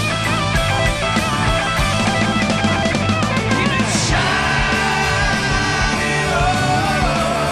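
Live rock band playing loudly: an overdriven Les Paul-style electric guitar plays wavering, bent notes over drums and bass. About four seconds in a cymbal crashes and a man's voice comes in singing long held notes.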